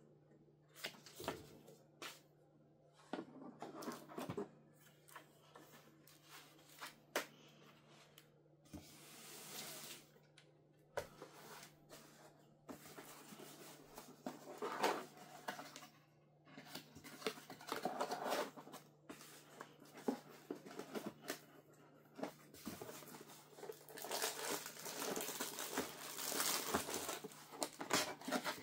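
Router box and packaging being handled and unpacked: irregular rustling, tearing and crinkling of plastic and cardboard with scattered clicks and knocks, over a faint steady hum.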